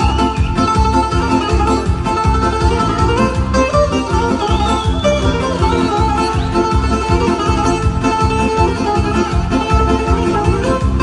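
Live Greek band music in an instrumental passage: a plucked-string lead melody over a steady, evenly pulsing beat, with no singing.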